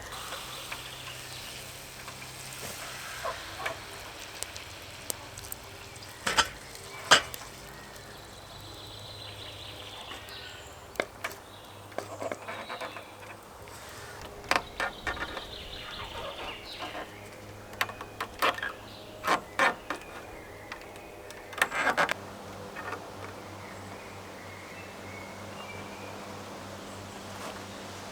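Scattered knocks and clacks of wood being worked with hand tools, some single and some in quick clusters, with the loudest strikes about a quarter of the way in and near three quarters through.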